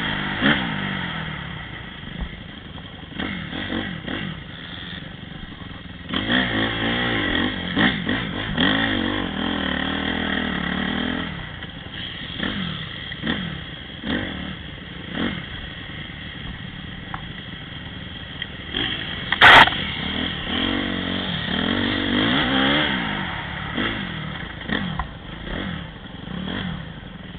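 Dirt bike engine revving hard and easing off again and again as it climbs a steep, loose slope. A single sharp knock comes about two-thirds of the way through.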